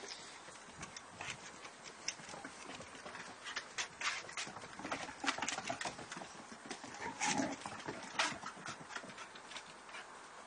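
Basset hounds' paws and claws clicking and scrabbling on wooden decking as two dogs chase each other: irregular, quick clicks and patters, bunching into louder flurries about four to five seconds and seven to eight seconds in.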